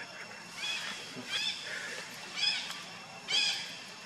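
Monkey calls: four short, high-pitched cries about a second apart, each rising then falling in pitch.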